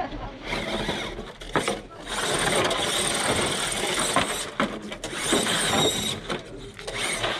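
Electric motor and geared drivetrain of an RC rock crawler whining in several spurts as it climbs, the longest lasting about two and a half seconds from about two seconds in.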